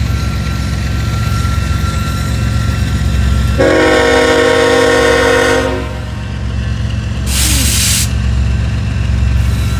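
BNSF diesel freight locomotives rumbling past with a steady low engine drone. About a third of the way in, the lead locomotive's multi-note air horn sounds one blast of about two seconds, and a short hiss follows near the end.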